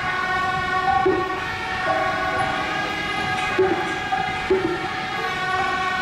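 Suona (Chinese shawm) band playing: sustained, horn-like reed tones that hold and then step between a few pitches, with short louder accents every second or two.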